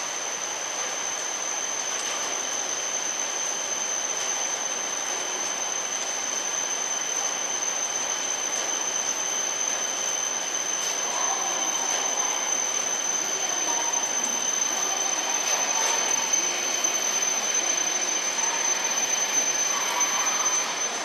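E7-series Shinkansen train pulling slowly into a station platform in heavy rain: a steady hiss with a high, steady whine held throughout, growing a little louder as the train draws close near the end.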